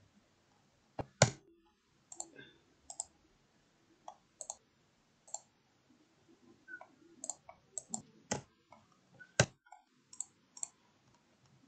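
Irregular clicks of a computer mouse and keyboard, some in quick pairs, the loudest about a second in and again near the end.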